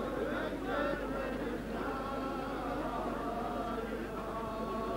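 A group of men chanting together in long held notes.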